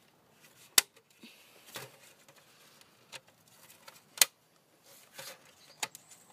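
A plastic hubcap's retaining ring being pressed into its clips: a series of sharp clicks about a second apart, two of them louder than the rest, as the ring snaps into place around the rim.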